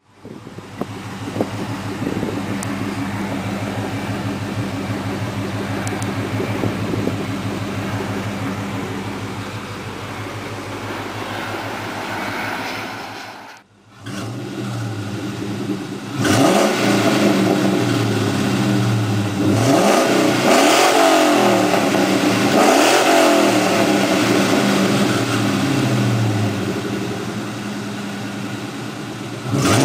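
2003 Ford Mustang GT's 4.6-litre V8 running through a Bassani exhaust with shorty headers and a catted X-pipe. It idles steadily, drops out briefly about halfway through, then is revved repeatedly, the pitch rising and falling with each blip. It sounds a bit funny because of a small exhaust leak at the right header, whose gasket did not seal.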